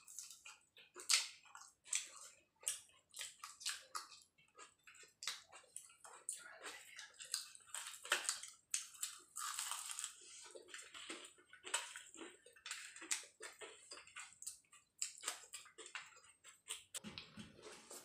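Close-up eating sounds of people biting and chewing singaras (deep-fried Bengali samosas): irregular crunches and crackles of the fried pastry crust between chewing noises.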